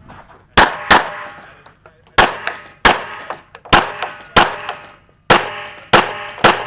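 Smith & Wesson M&P9L 9mm pistol firing nine rapid shots, spaced unevenly by pauses of up to about a second. A metallic ringing follows each shot, typical of bullets hitting steel targets.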